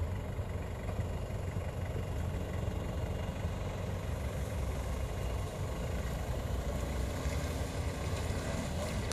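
Engine of a Toyota Land Cruiser Prado four-wheel drive idling and then creeping forward slowly through mud, a steady low rumble with no revving.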